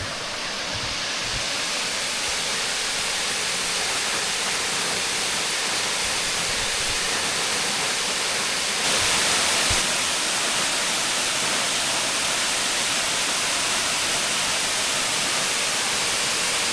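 Sheoak Falls, a 15 m cascade running high after more than a week of heavy rain, pouring steadily: a constant rushing of falling water, briefly a little louder for about a second near the middle.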